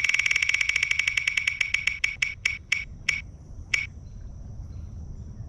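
Spin wheel ticking as it turns: rapid clicks that slow steadily to a few last spaced ticks as the wheel comes to rest, about four seconds in.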